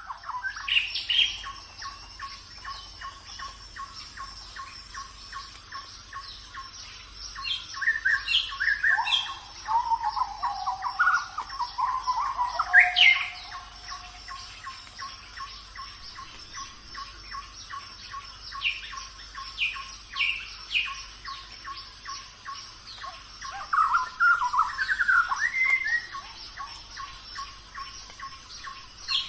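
Birds chirping and calling in short, repeated phrases, over a steady high hum and a fast, regular ticking.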